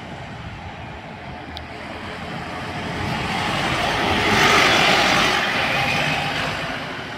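Single-deck bus driving past: its engine and tyre noise grows as it approaches, is loudest about four and a half seconds in as it passes close by, then fades as it pulls away.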